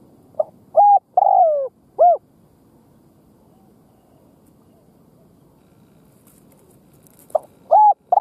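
Caged decoy spotted dove singing its cooing song: a loud phrase of four notes, the third one longer and falling in pitch, about half a second in, then the next phrase starting near the end.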